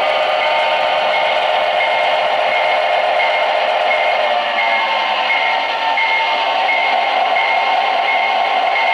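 Lionel O-gauge diesel locomotive slowing to a stop: its running sound drops in pitch about three to five seconds in, then carries on steady. A high pulsing tone repeats about twice a second throughout.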